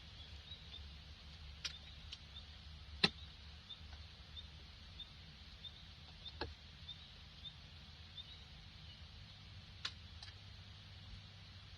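Quiet woodland ambience: a faint low rumble under a soft high peep repeating about every half second, broken by a few short sharp clicks, the loudest about three seconds in.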